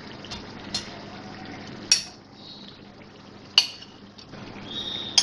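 Steel spoon clinking against a plate several times, at uneven gaps, as boiled liver pieces are scraped off it into a wok, with the liver's cooking water pouring in underneath.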